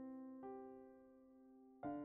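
Soft background music on electric piano: a held chord fades out within the first second, then a new chord is struck near the end.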